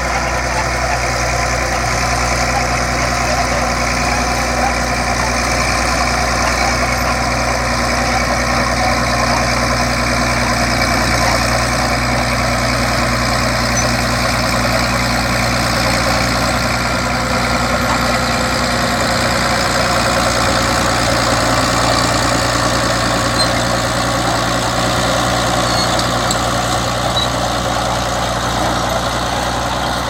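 Crawler bulldozer's diesel engine running steadily at an even pitch as the machine pushes soil with its blade.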